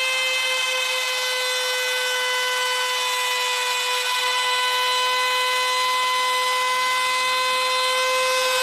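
Electric power tool running at a steady high-pitched whine, then cutting off suddenly at the end.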